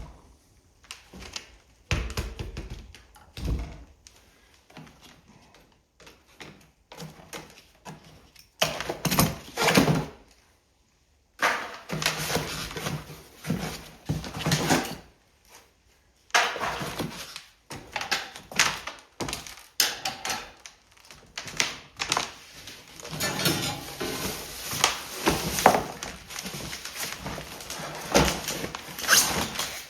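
Plastic and cardboard packaging being unwrapped and handled, rustling and crinkling in uneven bursts, with knocks and thunks as wrapped bike parts are moved.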